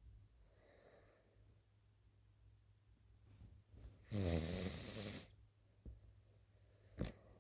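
Snoring in sleep: a faint breath near the start, then one loud, buzzing snore about four seconds in lasting about a second. A short click comes near the end.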